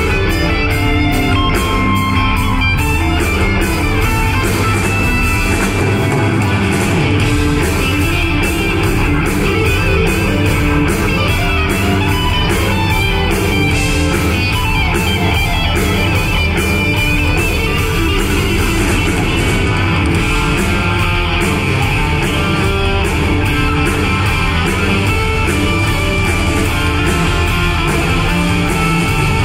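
Live progressive rock band playing: electric guitar over a steady drum beat, with bass, violin and keyboards, heard from the audience in a concert hall.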